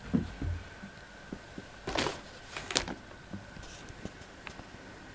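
Handling noises, with no vacuum motor running: a few low knocks at the start, then two short rustling bursts about two seconds in and again just under a second later, with scattered small clicks.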